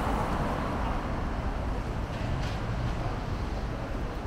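Steady city street noise of traffic, with wind rumbling on the microphone.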